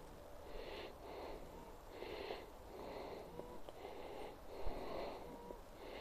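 Dog panting, open-mouthed, in a steady rhythm of about two breaths a second, with one brief thump a little past the middle.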